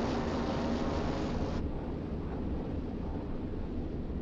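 Steady low rumble with a wind-like hiss over it; the hiss cuts off suddenly about a second and a half in, leaving the low rumble.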